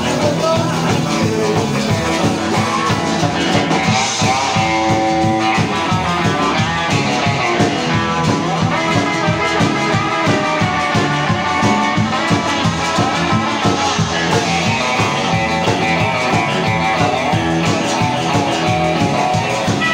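Live outlaw-country/blues-rock band playing an instrumental passage: electric guitar, strummed acoustic guitar, upright bass and drums, with no singing.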